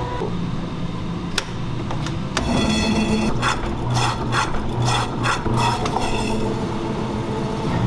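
Electric meat slicer (HFS-350G): a click as its rotary switch is turned, then the motor starts about two and a half seconds in and runs with a steady hum. The blade rasps through a block of meat in repeated slicing strokes, about two a second.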